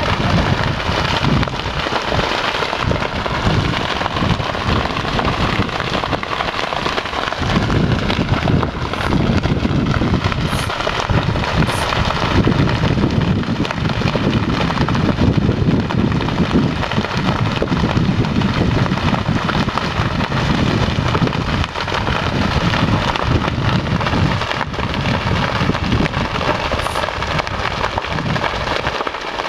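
Grass and cedar fire burning: a steady crackling hiss, under a loud, gusty wind rumble on the microphone that swells about seven seconds in.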